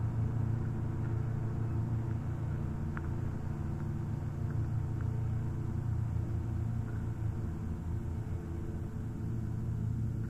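A steady low droning rumble made of several held tones, with a few faint clicks near the middle: an ambient drone soundtrack.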